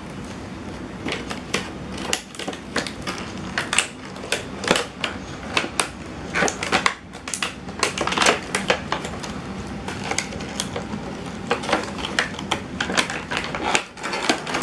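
Cardboard toy box being handled and opened by a child's hands: irregular scraping, tapping and crinkling of the cardboard, with sharper clicks scattered throughout.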